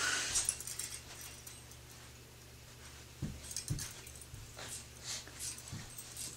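A Jolly Jumper baby bouncer creaking and jangling as an infant bounces in it, its spring and metal clips sounding with the bounces, with a few low thuds.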